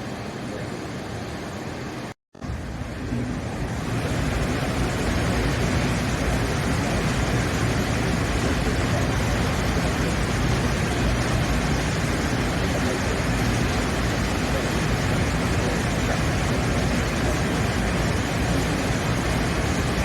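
Steady rumbling noise of a train running, cut off briefly about two seconds in and louder from about four seconds on.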